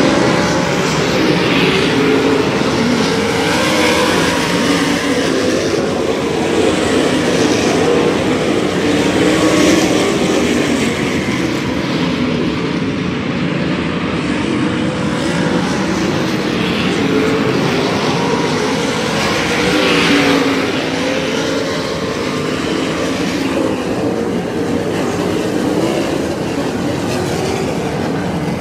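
A pack of winged sprint cars racing, their V8 engines running hard together in a steady, loud drone, with several engine notes rising and falling as the cars go through the turns.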